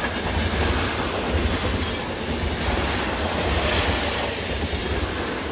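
A train rolling along the tracks: a steady, pulsing low rumble with a clatter of wheels over the rails.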